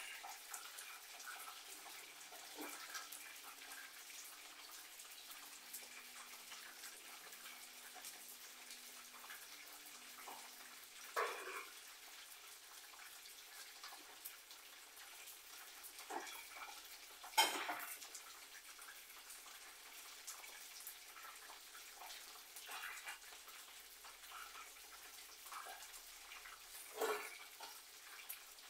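Chicken pieces sizzling steadily as they fry in oil in a pan, with a few short clinks and knocks of kitchenware, the loudest about two-thirds of the way through.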